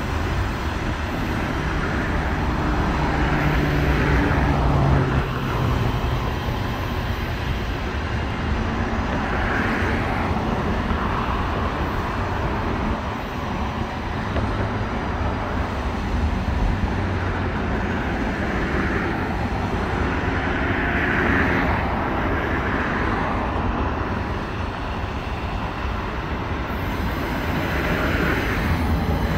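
CSX intermodal freight train's cars rolling past, a steady rumble that swells and eases every few seconds.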